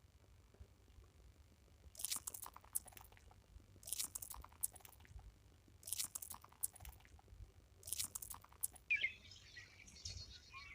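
An animal chewing crunchy food: four short bursts of crunching about two seconds apart. Birds chirp near the end.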